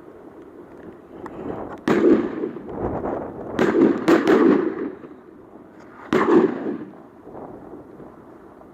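Shotgun shots at ducks: about five sharp reports over several seconds, three of them close together in the middle, each with a rolling echo.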